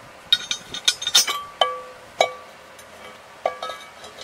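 Metallic clinks and taps as steel bolts and a new cast aluminum gearbox housing are handled and fitted against a boat-lift gearbox. Two clinks, about one and a half and two seconds in, ring on briefly with a clear tone, and another comes near the end.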